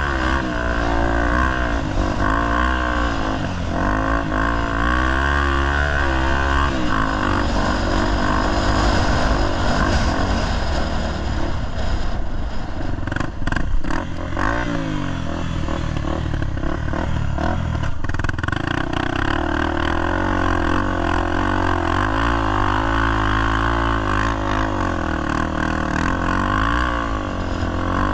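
Single-cylinder four-stroke engine of a Honda Tornado 250 enduro motorcycle revving up and down continuously as it is ridden, with a few sharp knocks around the middle.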